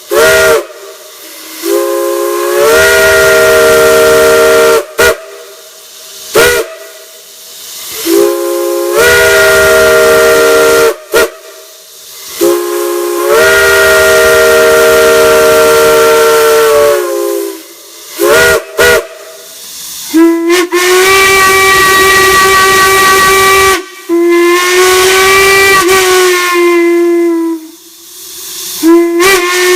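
Chime whistles are blown in a run of short toots and long blasts of a few seconds each. Every blast sounds a chord of several notes that slides up as it opens and down as it closes, and from about twenty seconds in a higher-pitched chord takes over. A steady hiss fills the gaps between blasts.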